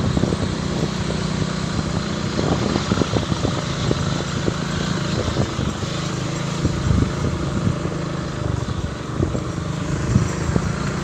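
Small motorcycle engine running at low, steady speed, with irregular knocks and rattles scattered through it as the bike rides over a muddy, rutted track.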